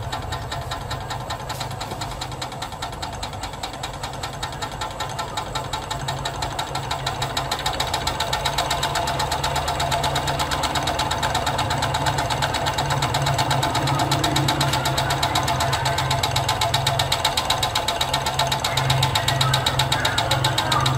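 Homemade steam engine built from a car shock absorber, running: a fast, even train of knocks and steam chuffs from the piston and flywheel, growing louder about eight seconds in.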